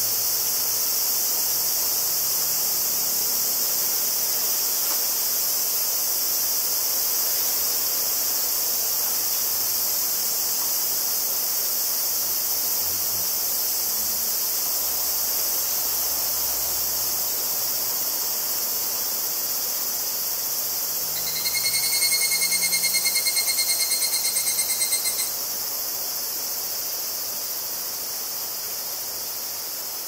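Higurashi cicadas (Tanna japonensis): a steady high insect chorus, and about three-quarters of the way through a nearby higurashi calls for about four seconds. Its call is a fast pulsed trill and is the loudest sound.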